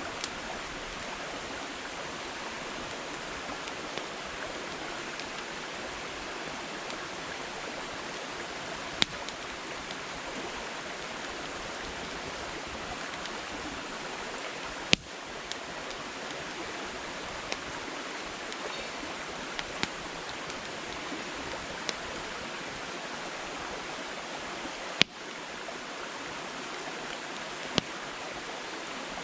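Wood fire burning in a campfire: a steady hiss of flame with scattered sharp crackles and pops from the firewood, a few of them louder, about 9, 15 and 25 seconds in.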